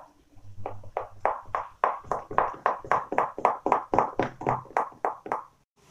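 A hand beating thick dal batter in a steel bowl, a rapid, regular wet slapping at about five strokes a second that stops shortly before the end.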